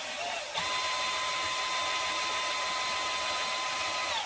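Die grinder mounted in the lathe tool post, spinning with a steady high whine over a hiss, while a drill drives the lead screw to feed the grinder along the 3D-printed worm's tooth flank. The whine steps up under a second in and stops suddenly near the end.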